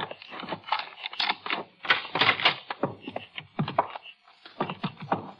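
Radio-drama sound effects of the office door being unlocked and opened and footsteps on a wooden floor: a rapid, irregular run of clicks and knocks.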